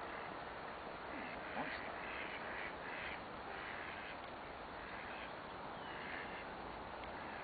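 Birds calling, a run of short repeated calls over steady background hiss.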